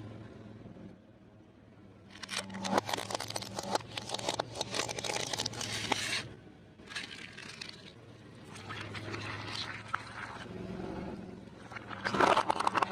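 Crunchy fried food crackling and crunching as it is crushed, in several bursts, the loudest near the end, over a steady low hum.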